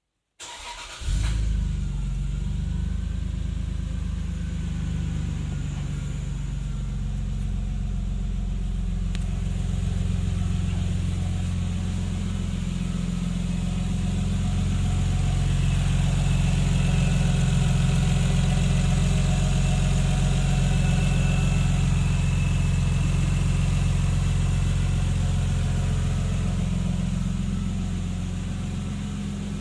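Toyota Aristo's 2JZ-GTE twin-turbo straight-six running at low revs through a TOM's exhaust, with a low bassy grunt. The sound cuts in suddenly just after the start and swells slightly midway.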